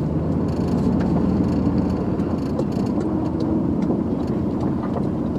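Truck engine running steadily as the truck drives loaded with scrap metal, with a few faint clicks and rattles.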